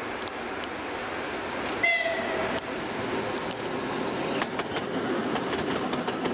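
2TE116 twin-section diesel locomotive hauling a freight train of tank cars passes close by, its diesel engines running, with one short horn toot about two seconds in. Wheels clack over the rail joints more and more often as the locomotive and the first cars roll past near the end.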